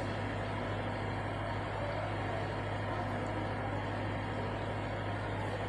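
A steady low hum under an even rushing noise from background machinery or engine noise, unchanging and with no distinct events.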